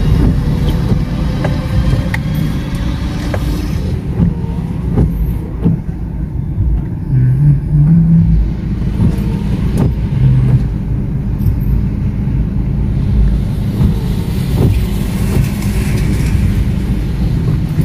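Car cabin noise while creeping along in traffic: a steady low engine and road rumble, with scattered light clicks.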